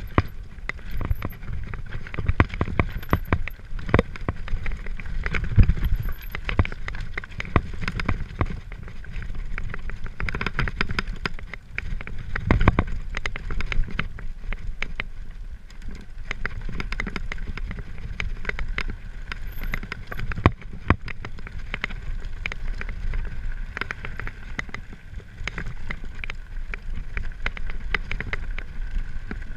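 Mountain bike riding downhill over a rocky gravel trail: tyres crunching on loose stones, with frequent irregular rattles and knocks from the bike over the rough ground, over a low rumble of wind on the camera microphone.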